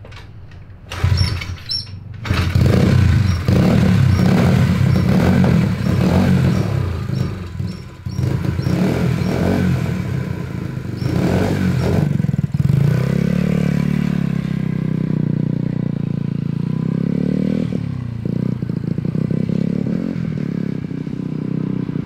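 Honda Z50 mini bike's small four-stroke single kick-started cold on choke, catching about a second in, then blipped in quick revs. From about halfway it pulls away, its pitch rising and falling as it is ridden.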